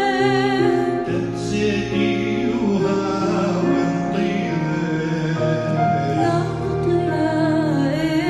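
Chaldean hymn: a woman sings long notes with vibrato over a sustained instrumental arrangement. Her voice is clearest at the start and again from about six seconds in.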